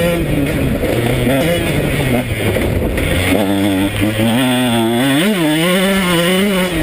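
KTM 125 SX two-stroke single-cylinder motocross engine under way. For the first three seconds it runs low and off the throttle. Then it picks up and revs higher, with a quick rise and drop in pitch about five seconds in.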